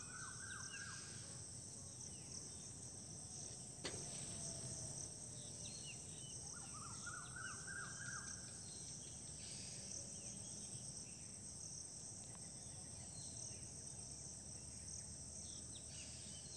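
Steady high-pitched chirring of insects, with a bird calling twice in quick runs of repeated notes and other faint chirps; a single sharp click about four seconds in.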